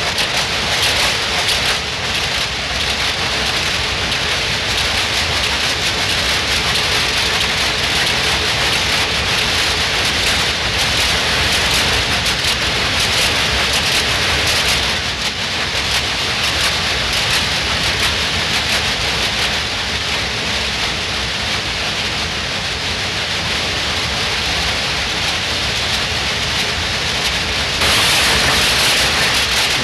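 Textile mill machinery running: a loud, dense, steady clatter of spinning and winding machines, growing louder and brighter near the end.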